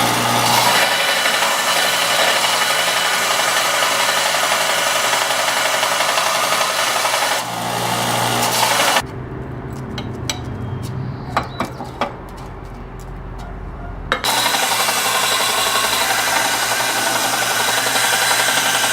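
Power sander running as a wooden piece is squared up and cleaned up against it, a steady grinding hiss. About nine seconds in it drops away for roughly five seconds with a few knocks, then runs again.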